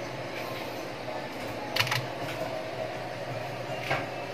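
Desktop computer's cooling fan running with a steady hum, with two sharp clicks, one about two seconds in and one near the end.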